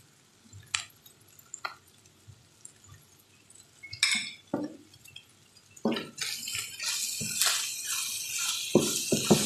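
Chicken strips and vegetables sizzling in a frying pan. The steady sizzle comes in about six seconds in, with a wooden spatula knocking and scraping against the pan as it stirs. Before that there are only a few faint ticks and a brief rustle about four seconds in.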